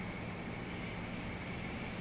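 Steady background hum and hiss with a few constant tones, without any distinct sound events.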